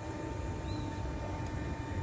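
Railway terminus platform ambience with electric trains standing: a steady low rumble and a constant high-pitched hum. There is a brief faint chirp about two-thirds of a second in.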